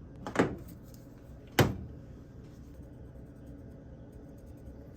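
Two short knocks about a second apart, the second sharper and louder, like hard objects being set down or handled on a workbench.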